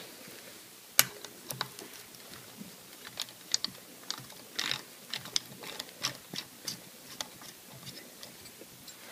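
Small, irregular metallic clicks and ticks of a hex key and fingers working a pitch adjustment bolt as it is threaded into a Max-Prop Easy feathering propeller hub, with a sharper click about a second in.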